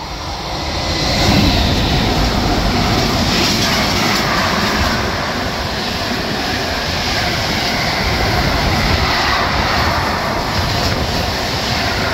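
Container freight train passing fast along the platform, hauled by an E483 electric locomotive. The noise builds as the locomotive goes by about a second in, then holds steady as container-laden flat wagons roll past, the wheels loud on the rails.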